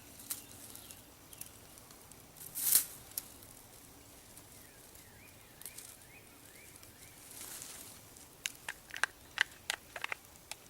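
Plants being handled and picked: a brief rustle, then a quick run of small snaps and clicks near the end as stems are broken off. A faint repeated chirp sounds in the background midway.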